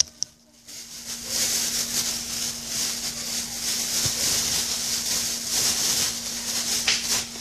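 Thin plastic bag crinkling and rustling as it is handled close to the microphone, with a steady low hum underneath.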